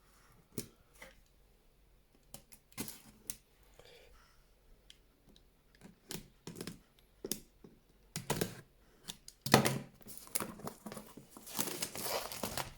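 Packaging of a Corsair CX450M power supply being handled and opened: scattered light clicks and taps on the cardboard box, a louder knock about nine and a half seconds in, then rustling, crinkling packaging near the end.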